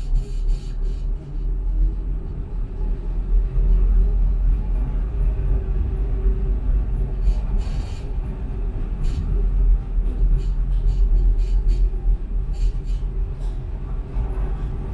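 Tram running along its track, heard from on board: a steady low rumble of wheels on rails, with a faint hum and a few sharp clicks.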